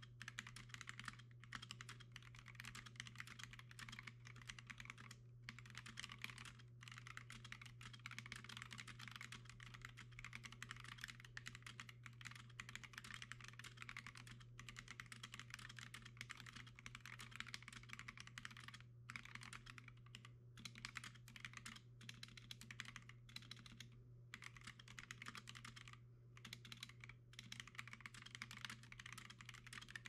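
Quiet, fast, continuous typing on an Akko ACR 98 mechanical keyboard: a dense clatter of keystrokes with a few brief pauses, over a faint steady low hum.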